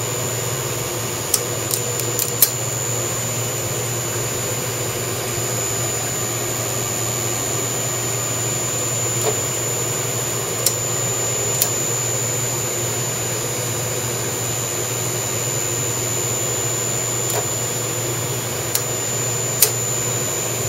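VFD-driven CNC mill spindle running a tapping head with an M5 roll-form tap, threading hole after hole: a steady motor hum with a steady high whine over it, and sharp clicks now and then.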